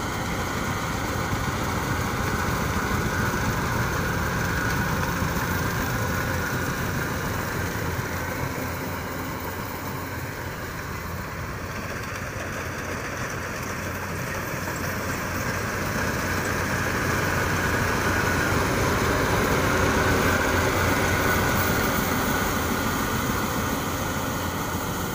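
Yanmar YH850 rice combine harvester running steadily at work in the field, its diesel engine and threshing machinery a continuous drone. It swells twice as the machine comes near, with a softer stretch in the middle as it moves away.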